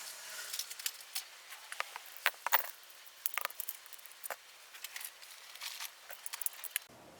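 Hand tools and small metal engine parts being handled while a motorcycle engine is taken apart: irregular light clicks, taps and scrapes, some sharper metal knocks among them.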